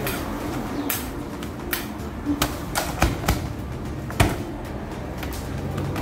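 Irregular sharp knocks and clacks from a roti canai cook working at a steel counter and flat griddle, about eight in all, the loudest about four seconds in, over a steady low background hum.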